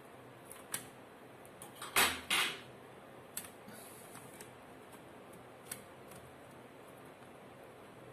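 Small clicks and knocks of laptop parts being handled during disassembly. The loudest is a pair of short clattering knocks about two seconds in, with a few lighter ticks before and after.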